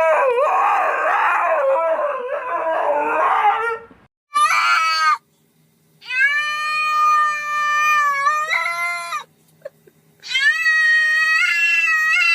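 Cat yowling: a loud, wavering stretch of calls, then a short call about four seconds in, followed by two long drawn-out meows with gaps between them.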